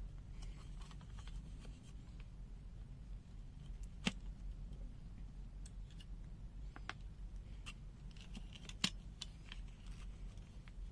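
Small clicks and light rattles of a digital multimeter's case, parts and tools being handled while it is taken apart. Two sharper clicks about four and nine seconds in, over a faint low hum.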